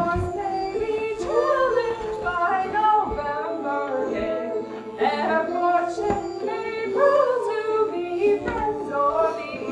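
Young voices singing a song together, with a low thump about every three seconds.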